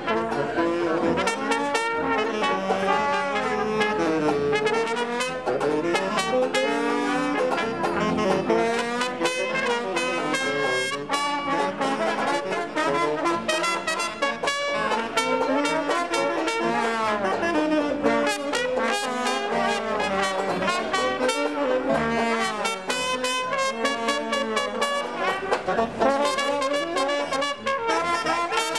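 A live jazz band with brass (trumpet and trombone) playing an upbeat tune with a steady beat, just after a count-off.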